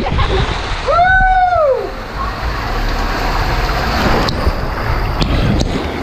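Water rushing and splashing down a water slide as the rider slides through the flume. About a second in there is one high, drawn-out voice call that rises and falls.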